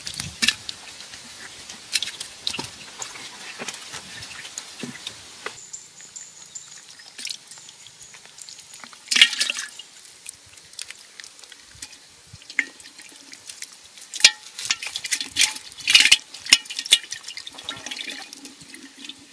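Catfish splashing and flopping in a muddy water-filled hole, making irregular wet slaps and splashes. The loudest bursts come about nine seconds in and again between about fourteen and seventeen seconds.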